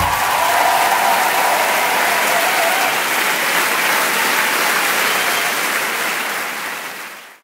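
A large theatre audience applauding steadily; the applause fades out near the end.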